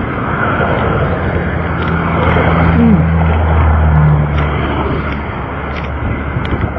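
Steady vehicle noise: road and engine rumble, with a low engine hum that swells from about a second and a half in and fades again about four and a half seconds in.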